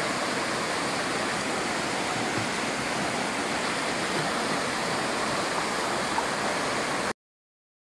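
Small waterfall pouring over rocks into a pool: steady rushing, splashing water that cuts off suddenly near the end.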